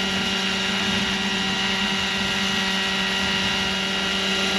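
Roban 600-size Hughes MD500 scale RC helicopter hovering, its rotors and drive giving a steady whine at the raised idle-up-one head speed.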